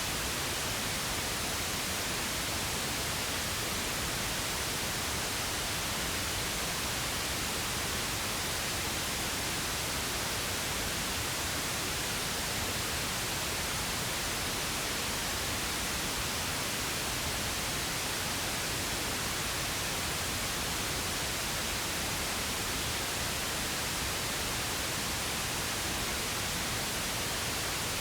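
Steady pink noise: an even, unchanging hiss spread across the whole range, with no tones or events.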